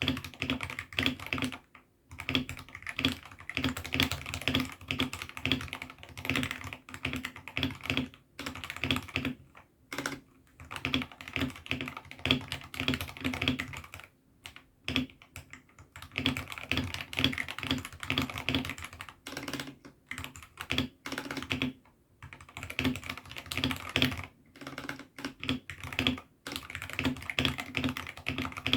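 Mechanical keyboard with AKKO Sakura switches being typed on: fast runs of keystrokes, each a sharp clack with a low thud beneath, broken every few seconds by brief pauses.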